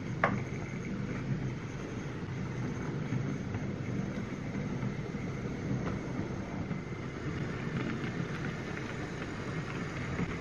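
OO gauge model train running on the layout: a steady low rumble of wheels and motor on the track, with one sharp click just after the start.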